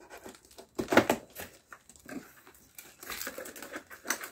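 Cardboard box and packaging being handled and rustled, with a short, sharp, loud sound about a second in and irregular crinkling from about three seconds on.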